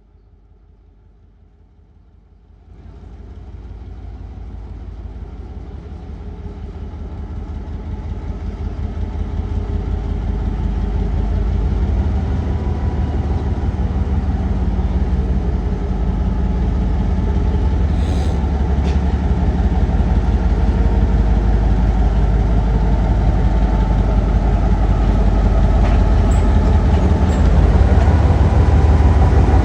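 A train running on the rails. The sound comes in suddenly about three seconds in, grows louder over the next several seconds, then holds as a steady, heavy low rumble.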